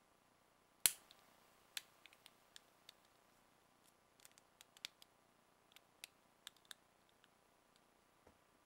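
Small clicks and taps of hard cast-resin model-kit parts being handled and pressed together in the hands. A sharp click about a second in is the loudest, followed by a scatter of lighter ticks.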